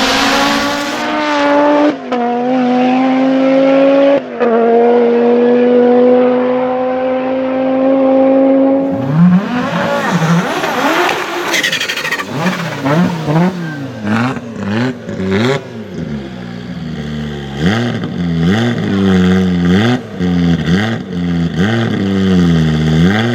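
Audi quattro S1 E2 Group B rally car's turbocharged 2.1-litre inline-five at full throttle, its note climbing through two gear changes. Then a run of quick throttle blips, the pitch rising and falling rapidly, with sharp cracks.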